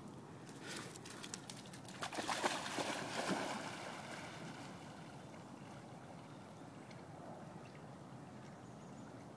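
A Labrador splashing into a lake about two seconds in, a noisy rush of water lasting a second or so, after a few short clicks; then only faint lapping as it swims.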